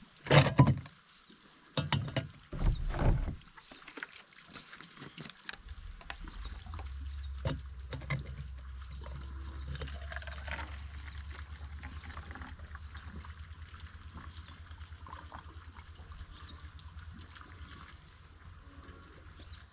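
A few sharp clinks and knocks of a spoon and gear in the first three seconds. Then coffee is poured in a steady stream from a bottle into a metal camp mug for more than ten seconds, trailing off slightly near the end.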